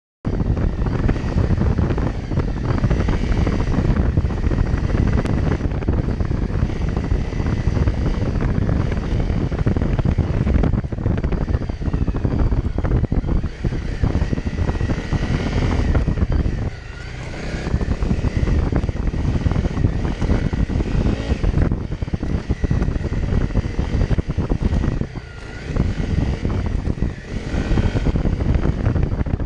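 Honda CRF250 Rally's single-cylinder four-stroke engine running under throttle as the bike is ridden along a muddy dirt track, heard from a helmet-mounted camera. The sound is steady and loud, dipping briefly twice, about halfway through and again near the end.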